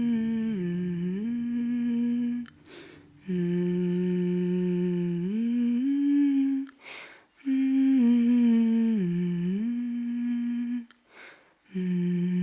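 A person humming a slow, wordless tune in long held notes, phrase by phrase, with short pauses for breath. The same dipping phrase comes around twice.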